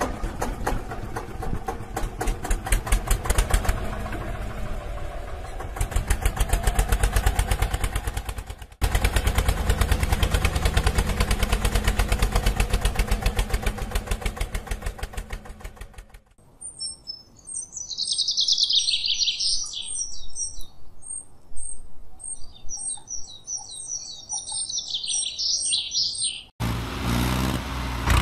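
An engine puttering with an even, pulsing beat, in several stretches, until about 16 seconds in. Birds then chirp for about ten seconds. Near the end a rougher engine-like rumble starts.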